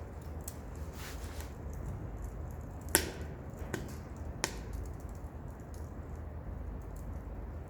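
Wood fire crackling in a small wood stove, burning pallet and scrap crate wood: a steady low rumble with a few sharp pops, the loudest about three seconds in.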